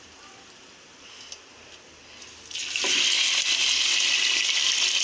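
Raw chicken pieces going into hot oil in a frying pan and sizzling loudly, the sizzle starting suddenly about two and a half seconds in and holding steady; before that only a faint hiss from the oil.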